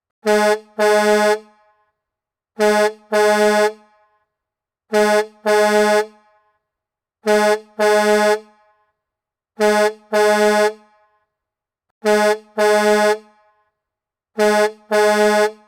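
Semi-truck air horn honking in a repeating pattern: a short blast then a longer one, seven times, about every two and a half seconds, each blast held on one steady pitch.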